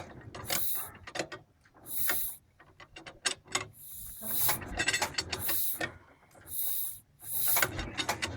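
HTZ DT-14 tractor engine being turned over without firing: mechanical clicking and clattering, with a short hiss about every second and a half.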